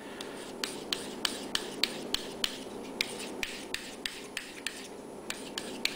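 Spyderco pocket knife blade stroked repeatedly across the extra-fine side of a DMT Diafold diamond sharpening stone, steel scraping on diamond grit in quick short strokes, a few a second.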